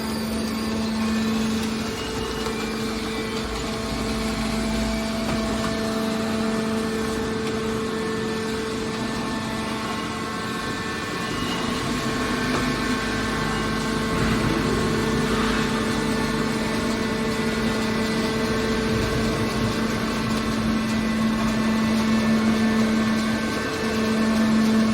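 Hydraulic copper wire baler's power unit running with a steady hum.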